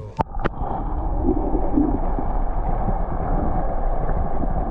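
Steady rushing noise of wind and water, with a couple of sharp clicks just at the start.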